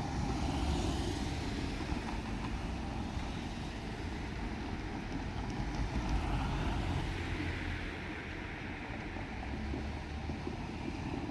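Diesel train running by with a steady low rumble of engine and wheels.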